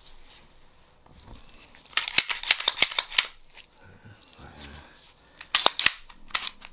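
A rag rubbed hard over a Glock pistol's slide and frame, making rapid scratchy clicks and scraping in two bursts: a longer one about two seconds in and a shorter one near the end.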